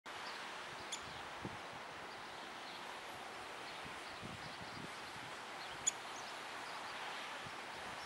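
Steady outdoor winter ambience, a noisy hush with faint scattered high bird chirps. It is broken twice by a short sharp tick from the male downy woodpecker at the wire-cage suet feeder, about a second in and again near six seconds, the second one louder.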